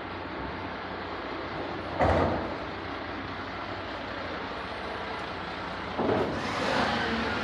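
Mercedes-Benz refuse lorry's diesel engine running steadily, with a sharp metal clank about two seconds in and another about six seconds in, after which the din of the bin-loading gear stays louder.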